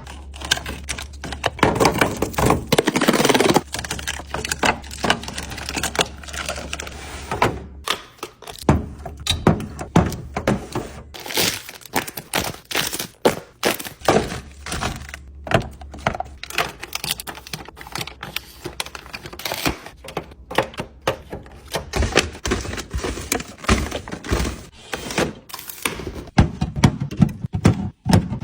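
Packaged snacks and plastic containers being handled and set into a refrigerator drawer during a restock: an irregular run of knocks, clicks and thunks, with wrapper crinkling in the first few seconds.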